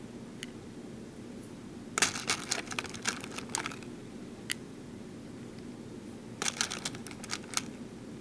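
BeadOs beads clicking against a plastic layout template and each other as they are set in place by hand: two runs of quick, light clicks, about two seconds in and again about six and a half seconds in, with a few single ticks between.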